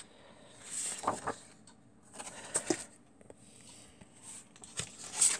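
Sheets of craft paper and card being handled and slid over one another: a few brief rustles and swishes, the loudest near the end.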